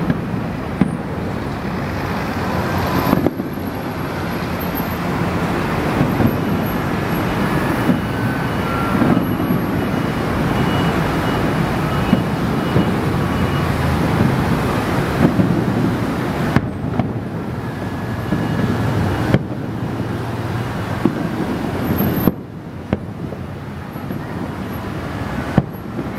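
Aerial fireworks shells bursting in quick succession: a continuous, dense rumble with sharper bangs standing out every second or two.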